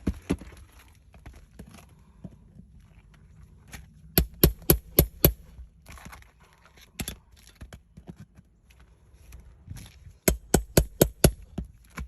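Quick runs of sharp taps on asphalt roof shingles, about five a second, in two bursts of about six with a single knock between: a shingle being struck to check how readily its granules come off.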